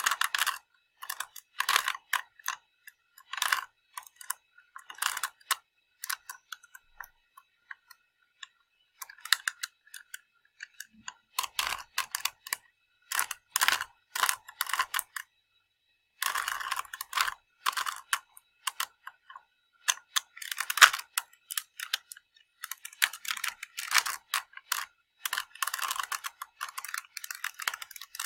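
A tiny plastic Rubik's cube being twisted: runs of rapid plastic clicking and clacking as its layers turn, broken by short pauses.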